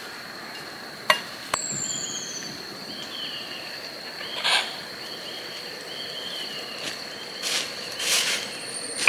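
Rural outdoor ambience: a steady high-pitched insect trill with bird calls over it, including a falling whistle about a second and a half in and a run of short chirps. Two sharp clicks come near the start, and a few brief noises later on.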